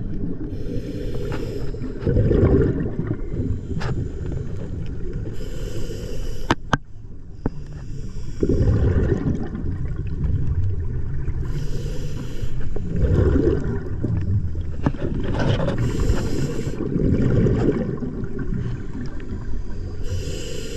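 Scuba diver breathing through a regulator underwater, in a steady cycle about every four to five seconds: a short high hiss on each inhale, followed by a low rumble of exhaled bubbles. A few sharp clicks come in the first seven seconds.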